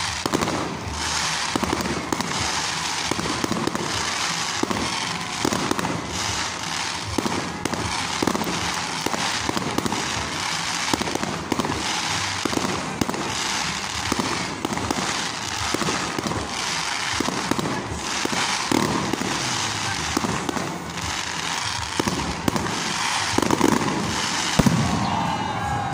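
Aerial fireworks display: shells bursting overhead in a continuous barrage, with sharp bangs several times a second over a steady crackle.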